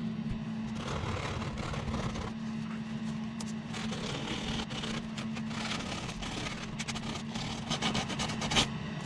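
The sharp square edge of a wooden chair-frame piece being worked down and rounded off. Irregular scraping and sanding strokes come over a steady low hum, busier in the second half and with one sharp scrape near the end.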